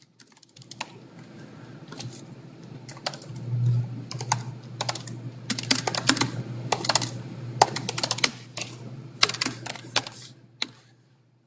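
Keystrokes on a computer keyboard, typed in quick bursts of clicks, over a low steady hum.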